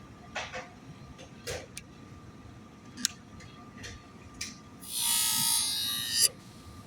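A scissor blade drawn across the spinning abrasive wheel of a Work Sharp Twice as Sharp sharpener: a hiss of grinding lasting about a second and a half near the end, closed by a click. Before it come a few scattered clicks of handling.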